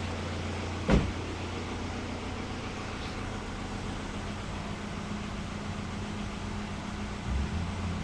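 Audi A6 2.0 TDI diesel engine idling with a steady low hum. A single sharp knock about a second in.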